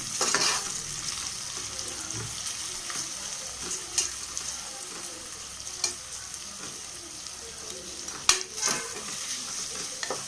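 Sliced onions and whole spices sizzling in hot oil in an aluminium pressure cooker on medium flame, stirred with a spatula that scrapes and knocks against the pot a few times, most sharply about eight seconds in.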